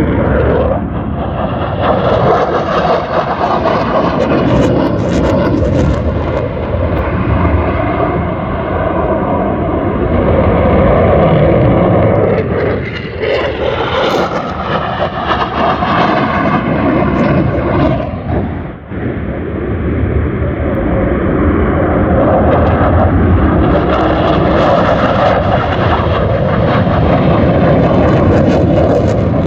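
RAF military aircraft flying past low, a loud sustained engine roar that swells and fades over the pass, loudest about halfway through and again near the end.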